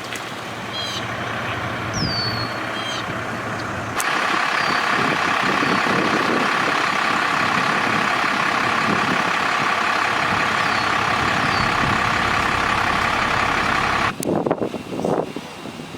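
Loud, steady vehicle engine noise that starts suddenly about four seconds in and stops suddenly near the end, with a few short high chirps before it.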